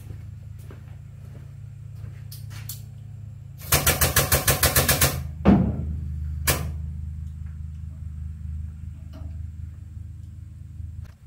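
Impact wrench hammering rapidly for about a second and a half, its motor winding down right after, followed by two sharp clicks. A steady low hum runs underneath.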